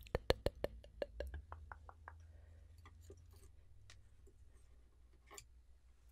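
Close-miked mouth clicks, a quick run of about six a second that fades away over the first two seconds, then only a few scattered faint clicks over low room hum.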